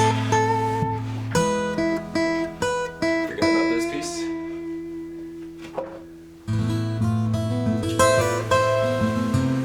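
Background music of plucked acoustic guitar, quieter for a few seconds in the middle before fuller strumming comes back about six and a half seconds in.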